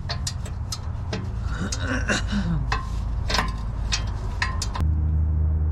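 Wrench and socket clinking against the exhaust manifold bolts in a series of sharp metallic taps, with a short grunt about two seconds in. A steady low hum underlies it and grows louder near the end.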